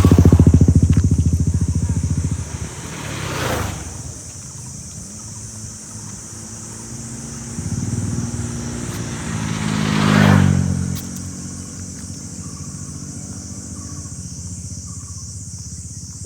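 Motor vehicles passing on a road. One engine is loud at the start and drops away after about two and a half seconds. Another rises in pitch to a peak about ten seconds in and then fades, over a steady high hiss.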